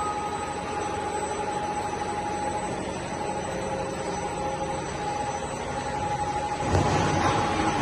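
Two-colour dog chew extrusion line running: a steady machine hum and hiss with a constant whine, getting louder about a second before the end.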